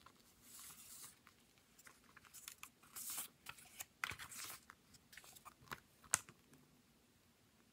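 Glossy origami paper pack and its instruction sheet rustling and crinkling as they are handled and turned over, in several short bursts with a couple of sharp crackles, then quieter near the end.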